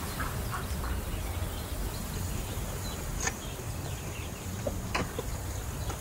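Open-air ambience with a steady low rumble, a few faint duck quacks in the first second, and two sharp clicks, one about three seconds in and one near the end.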